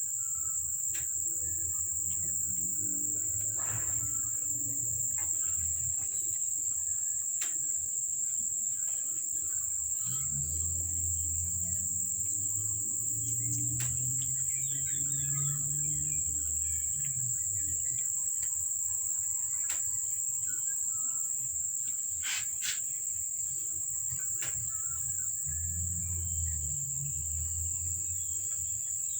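Crickets trilling in one steady high-pitched band, with scattered faint clicks and stretches of low, muffled murmur.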